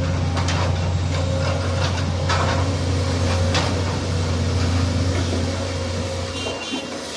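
Case CX220C hydraulic excavator's diesel engine running steadily under load with a deep hum and a thin, steady higher whine, while the bucket scrapes and knocks through soil several times in the first few seconds. The engine sound falls away about six and a half seconds in.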